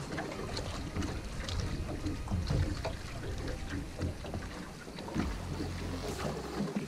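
Wind buffeting the microphone and water lapping against a small aluminium boat's hull, with scattered small knocks and splashes.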